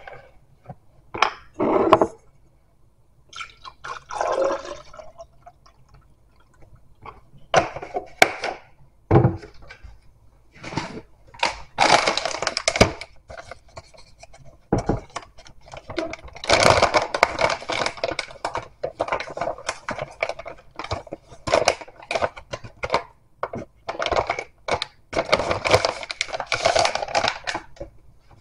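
Liquid poured from a plastic jug into a tall tumbler, then a plastic pouch handled, with a long run of stop-and-start rustling and knocks on the countertop.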